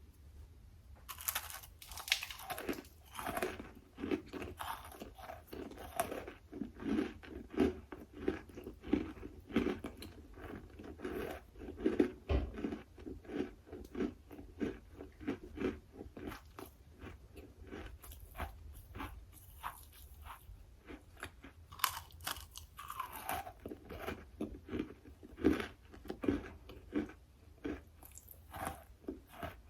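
A person biting and chewing a hard, chalky material (drywall or water-soaked chalk), with sharp crunches at the bites about a second in and again around 22 seconds, and steady rhythmic chewing between.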